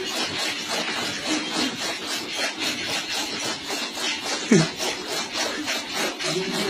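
Bicycle-driven chaff cutter running, its blades chopping fodder in a steady repeating rhythm. One brief, louder sound falling in pitch comes about four and a half seconds in.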